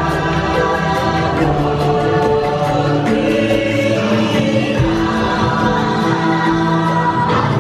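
Music with choral singing: voices holding long sustained chords.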